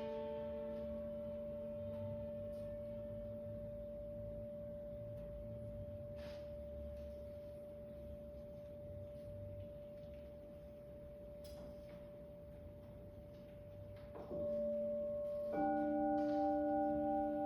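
Crystal singing bowls ringing: one bowl holds a long, steady, pure tone that slowly fades, is sounded again about 14 seconds in, and a second bowl of a different pitch joins, louder, a second and a half later.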